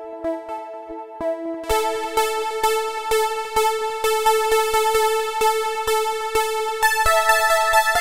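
TAL J-8 software synthesizer, an emulation of the Roland Jupiter-8, playing its 'Keys of Silk' keys preset: sustained chords with notes struck in a steady rhythm of about two a second. The chord changes about two seconds in and again near the end.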